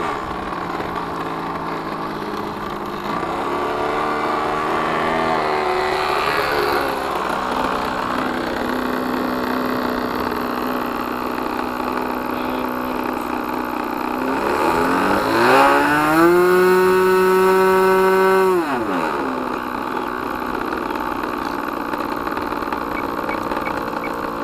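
Thunder Tiger .61 two-stroke glow engine on an RC model plane, running through a quiet pipe. It holds a steady mid-throttle note, is opened up to a much higher, louder note for about three seconds from around 15 s in, then is throttled back down.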